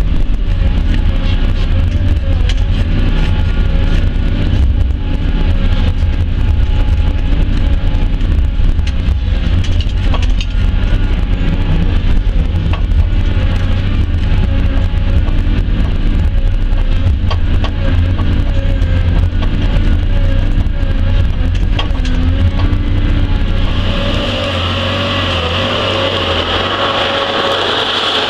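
ELTEC FB317L tracked feller buncher working, heard as a loud, deep steady drone of its engine and hydraulics with a constant whine above it. About 24 seconds in, the deep drone falls away and a higher hiss with the whine takes over.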